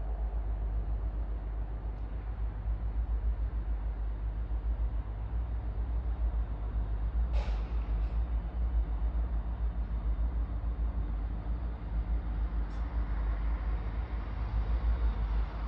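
Class 170 Turbostar diesel multiple unit approaching slowly, its low diesel rumble building up towards the end. A brief sharp noise comes about halfway through.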